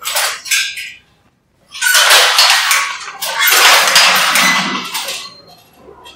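Wooden handloom mechanism clattering as it is worked by hand: a short clatter at the start, then two longer rattling runs of about a second and a half each.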